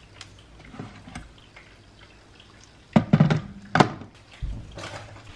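Hot water poured into a ceramic mug over a tea bag, with several sharp knocks and clinks and a low thud from about three seconds in.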